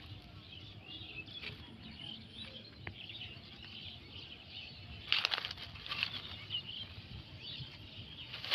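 Quiet outdoor background with faint bird chirps throughout, and a few short rustles about five and six seconds in.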